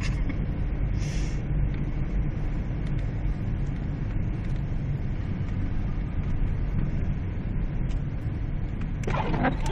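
Steady low rumble of a car driving through deep snow, heard from inside the cabin. A short hiss comes about a second in, and a brief louder noise starts near the end.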